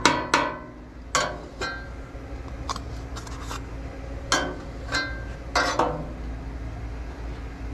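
Metal spatula scraping and tapping on the steel top of a Blackstone tabletop griddle while spreading butter: a string of sharp, irregular clinks and scrapes.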